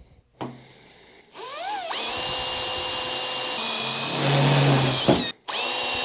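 Electric drill spinning up with a rising whine, then running steadily as a 5/16-inch bit drills a tap hole for a 3/8 thread in the workbench's steel plate. The pitch dips a little as the bit bites, and the sound breaks off for a moment near the end before the drill runs on.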